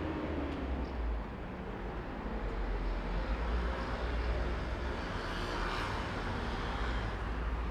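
Road traffic in a town: a steady low engine rumble and tyre noise, with one vehicle passing closer and louder about five to six seconds in.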